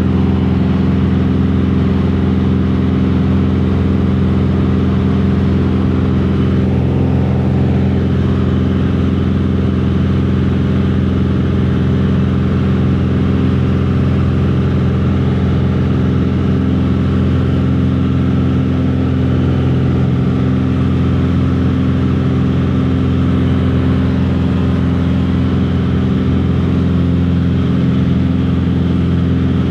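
Passenger airliner's engines heard inside the cabin, a steady loud drone with a low hum, during the climb just after takeoff.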